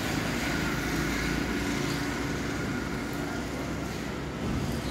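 Steady mechanical rumble with a faint high whine held above it, like an engine running nearby.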